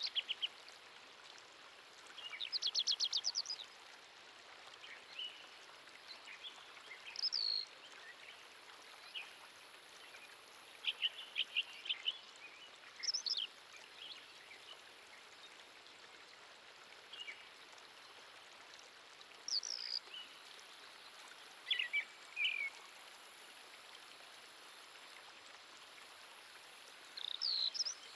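Wild birds singing and calling: scattered short chirps and whistled notes, with a fast trill about two seconds in, over a continuous high hiss.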